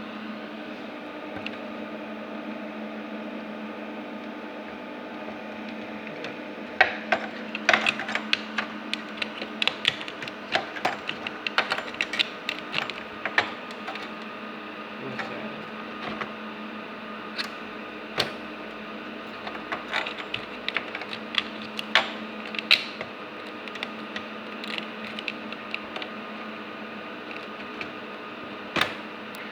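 Irregular sharp clicks and knocks of parts being handled on a server chassis, starting about seven seconds in and coming in clusters, over a steady electrical hum.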